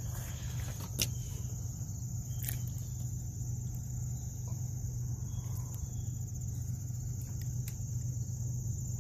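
Steady high-pitched insect chorus over a low steady hum, with a few sharp clicks in the first seconds.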